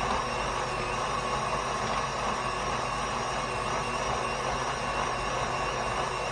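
KitchenAid stand mixer running steadily with its meat grinder attachment, the motor and auger turning as meat is fed through, a continuous mechanical hum with a few fixed tones in it.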